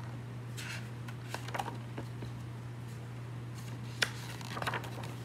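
Paper pages of a hardcover picture book being handled and turned: soft rustles, with a short sharp click about four seconds in, over a steady low hum.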